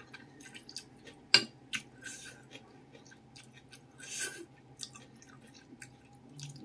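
Close-up eating sounds: noodles slurped from soup and wet chewing with small mouth clicks. There is one sharp click about a second and a half in, and a longer slurp around four seconds, over a faint steady hum.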